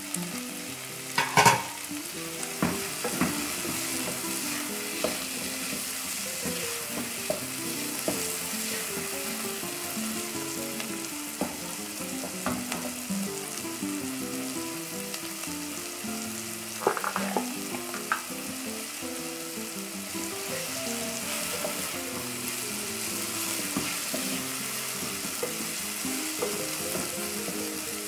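Chopped onion, garlic, green bell pepper and tomato sizzling as they sauté in fat in an aluminium pot, stirred with a wooden spoon that knocks against the pot now and then, most sharply about a second and a half in and again around seventeen seconds.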